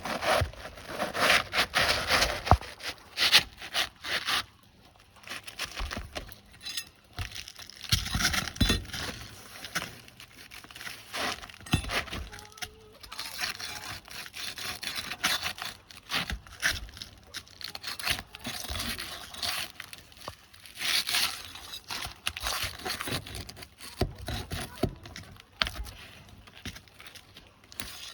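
Asphalt roof shingles being worked loose with a flat pry bar: irregular scraping, cracking and knocking of the steel bar against the stuck shingles and nails.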